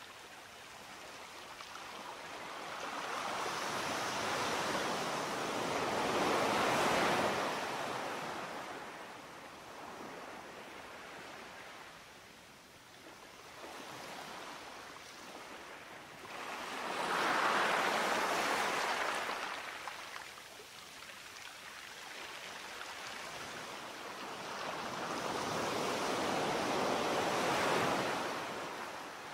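Sea waves breaking: three surges of surf about ten seconds apart, each swelling up to a peak and falling away.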